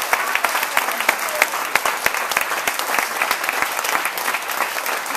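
Audience applauding, many people clapping at once with no let-up.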